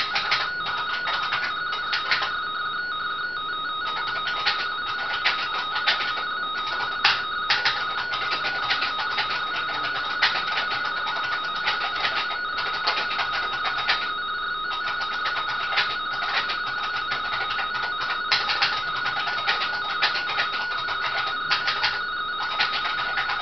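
RTTY (radio-teletype) data signal from a radio receiver's speaker: a steady warbling of two close tones, mark and space, keyed back and forth as a text message is sent, with frequent short crackles of static.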